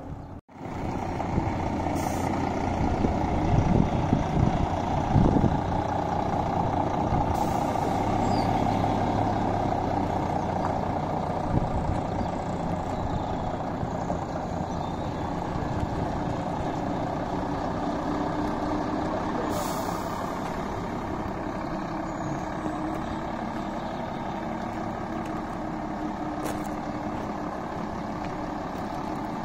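Single-deck bus's diesel engine running steadily, with four short hisses of air from its air brakes.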